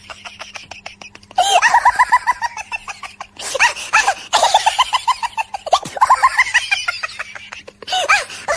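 A run of quick even clicks, then high-pitched, rapid cackling laughter in several short bursts that cut off and restart abruptly, as pieced-together meme sound effects.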